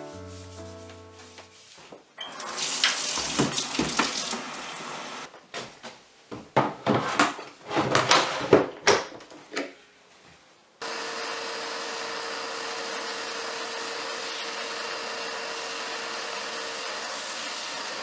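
Canister vacuum cleaner switched on about eleven seconds in and running steadily, a rushing noise with a constant whine in it. Before it comes a few seconds of rubbing hiss, then a run of knocks and clicks.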